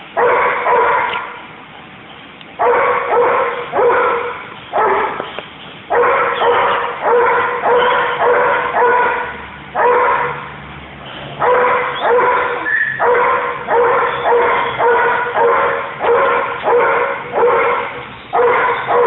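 Dutch Shepherd barking over and over, about two barks a second in runs of several, with short pauses between runs. The barks echo in a large warehouse hall.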